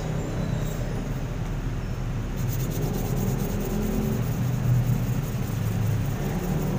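A small metal flashlight part rubbed rapidly back and forth on a sheet of sandpaper, a quick repeated scratching that sets in about two and a half seconds in, over a steady low rumble.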